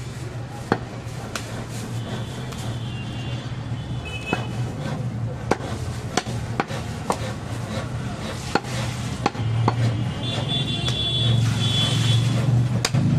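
A butcher's knife knocking and tapping on a wooden chopping block as goat meat is cut and trimmed from a leg bone, in sharp irregular knocks. Underneath runs a steady low drone that grows louder near the end.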